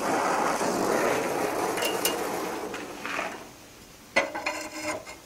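Gas torch flame hissing steadily as it heats a twisted steel bar, dying away about three and a half seconds in. About four seconds in, the steel twisting wrench clinks sharply against the bar with a brief metallic ring, followed by a few lighter clicks.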